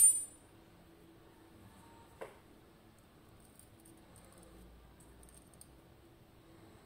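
Small metal parts of a disassembled pin tumbler lock clinking on a surface. There is a sharp clink with a brief high ring at the start, a lighter knock about two seconds in, then faint small ticks.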